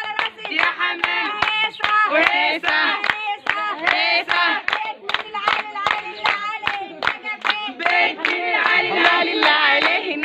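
A group of women singing a folk wedding song together, with steady rhythmic hand clapping keeping the beat.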